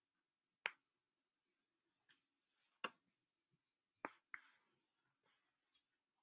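Near silence with a few faint sharp clicks: one about a second in, one near three seconds and one just after four seconds.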